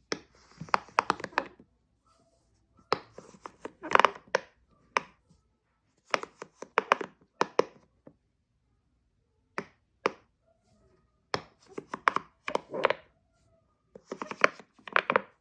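Silicone bubbles of a pop-it fidget toy being pressed: quick runs of soft pops and clicks, several in a row, with short pauses between the runs.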